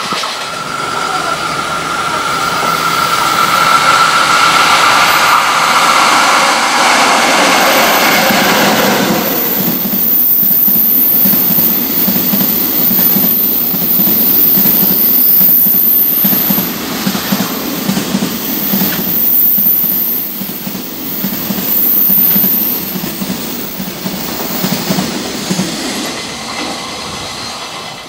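Freight train passing at speed. First the electric locomotive, with a whine that drops in pitch as it goes by, then a long string of freight wagons clattering rhythmically over the rail joints, with a thin high squeal from the wheels, fading near the end.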